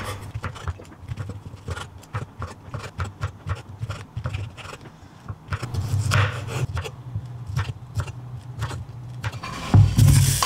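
Chef's knife chopping shiitake mushrooms and cauliflower on a wooden cutting board: irregular knocks of the blade against the board over a low hum. Near the end there is a louder clatter as the pieces are slid off the board into a pan.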